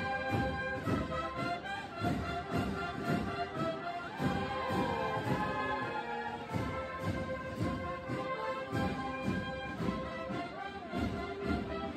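Marching brass band playing in the street: trumpets holding and sliding between notes over a steady drumbeat.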